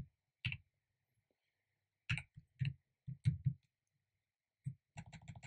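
Computer keyboard keystrokes: separate key presses, singly and in pairs, then a quick run of typing about five seconds in.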